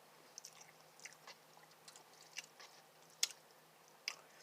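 Close-up mouth sounds of a person chewing spicy instant noodles: faint wet clicks and smacks at irregular intervals, the loudest a little past three seconds.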